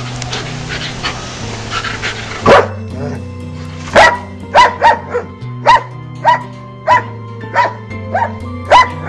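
A dog barking, with quick, evenly spaced barks nearly twice a second from about four seconds in, over background music with a low sustained line.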